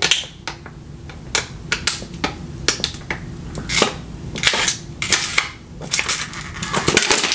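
Thin disposable plastic water bottle crinkling and crackling as it is gripped and tipped up to drink from, with gulps of water; irregular sharp crackles, some in quick clusters.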